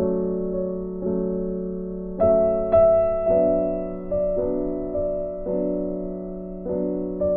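Background music: slow, gentle piano chords, each struck and left to fade, about one a second.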